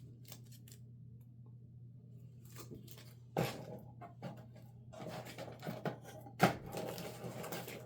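Trading cards and card holders being handled and shuffled: light rustling, with a sharp click about three and a half seconds in and another about six and a half seconds in, over a low steady hum.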